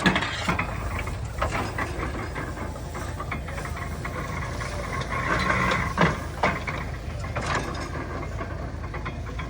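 A 1923 International Harvester stationary baler at work baling straw: a steady engine drone with irregular knocks and clanks from the machinery, the loudest at the start and about six seconds in.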